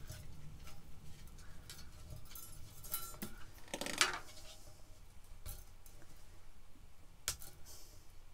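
Light clicks and clinks of handling as a strand of tiny string lights is wound around a metal tier tray, the wire and bulbs tapping against the tray. A short clatter about four seconds in is the loudest, with a sharp single click near the end.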